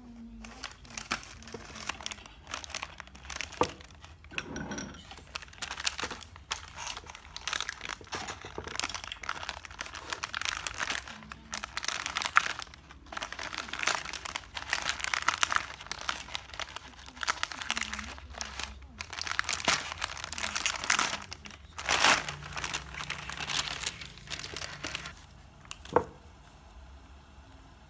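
Plastic packet of roasted seaweed (nori) sheets crinkling and rustling as it is opened and handled, in irregular crackly bursts, with one sharp tap near the end.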